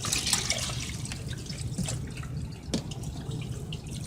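Water dripping and splashing as wet laundry is lifted out of the wash tub of a twin-tub portable washing machine and moved to the other tub, over a low steady hum, with one sharp click near the end.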